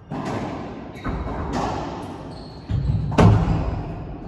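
Racquetball rally: about five sharp impacts of racquets striking the ball and the ball hitting the walls, each echoing in the enclosed court, the loudest about three seconds in.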